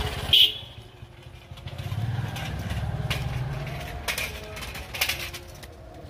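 A motorcycle engine's low rumble swells and fades away. A few sharp clicks and knocks follow near the end.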